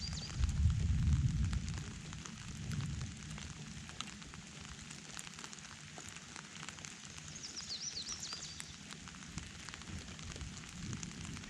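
Steady rain with many small drop impacts crackling throughout. A low rumble of thunder sounds in the first few seconds and then fades. A bird chirps briefly about eight seconds in.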